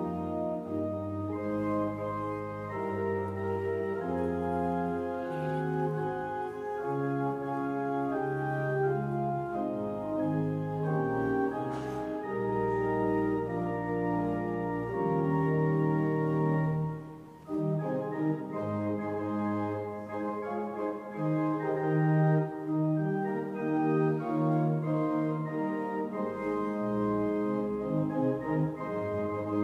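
Organ playing slow, held chords as quiet instrumental music during Communion, with a brief break about seventeen seconds in. One light click is heard about twelve seconds in.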